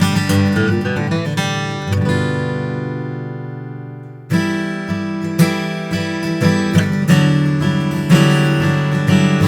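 Martin HD-28 dreadnought acoustic guitar played solo. Picked notes give way to a chord left ringing and fading for about two seconds, then rhythmic strumming starts up again.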